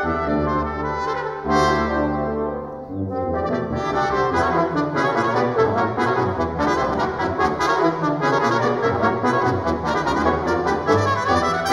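Brass quintet of two trumpets, French horn, trombone and tuba with amplified pedal harp playing: held low brass chords for the first few seconds, then a busy passage of quick, short notes.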